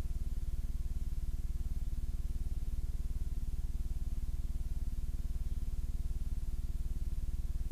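Steady low electrical hum with a fast, even buzz, unchanging throughout: the kind of hum and buzz heard on a blank stretch of digitised videotape.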